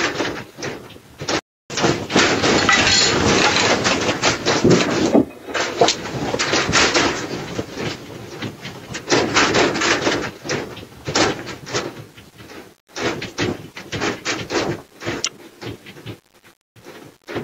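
Shop fittings and goods rattling and banging as an earthquake shakes the building: a dense, continuous clatter of knocks and impacts that breaks off briefly twice.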